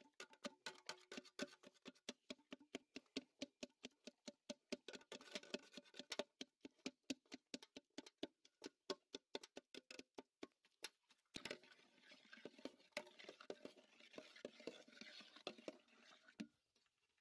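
Metal hand masher pounding sliced bananas against the bottom of a large aluminium pot, a steady beat of about four strokes a second. About two-thirds through it gives way to a denser, continuous scraping as the mash is stirred in the pot.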